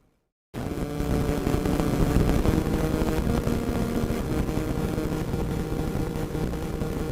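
Radio static: a dense hiss thick with crackles, cutting in abruptly about half a second in after a moment of silence, with a low steady hum under it.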